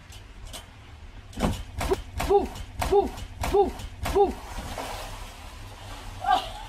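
Person bouncing on a garden trampoline: a couple of knocks, then about five evenly spaced bounces, each with a short rising-and-falling squeak, followed by a water splash as she drops headfirst into an inflatable paddling pool.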